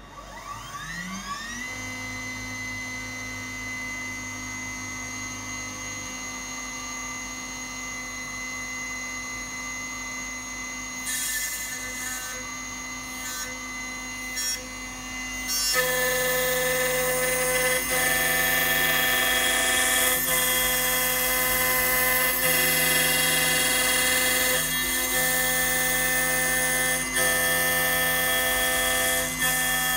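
A small CNC milling spindle spins up with a rising whine and then runs at a steady high pitch. From about halfway it gets louder and adds a hissing grind as the cutter mills away the A10 chip on an iPhone board, with a few short bursts of cutting just before.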